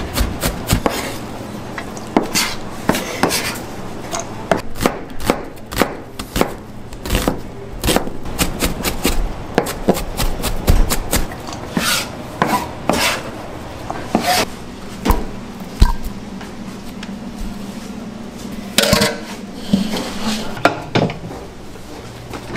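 Knife chopping on a cutting board: irregular sharp knocks, several a second at times and sparser later, over a steady low machine hum.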